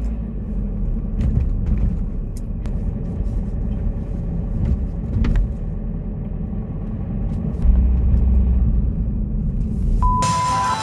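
Low, steady road and engine rumble inside a moving car's cabin. About ten seconds in it gives way to a glitchy transition effect with a short steady beep, and music starts.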